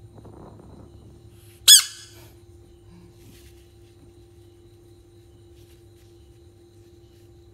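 One short, sharp, high-pitched squeak, rising in pitch, a little under two seconds in, over a faint steady hum.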